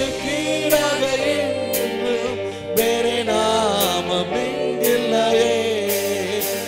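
Live praise-and-worship music: a man singing into a microphone over held keyboard chords, with a beat struck about once a second.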